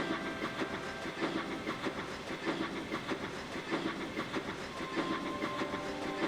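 A train running along the track with a rapid, even chuffing and clatter.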